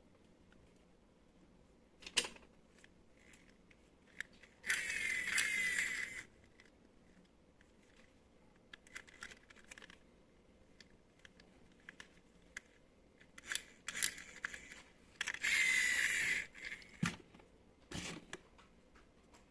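Unboxing handling sounds: two hissy, scraping stretches of about a second and a half each, one near the start and one near the end, with scattered clicks and knocks between them.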